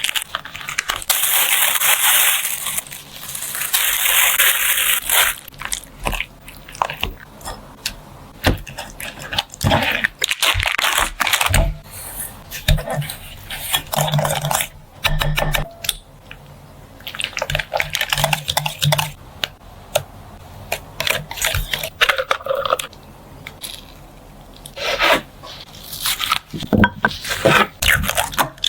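Food preparation in a kitchen: a steady hiss for the first few seconds, then a long run of scraping, crunching and clattering of food and utensils.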